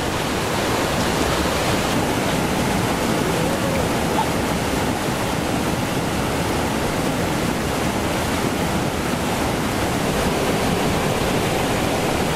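Fast-flowing stream rushing over rocks, a steady, dense sound of water.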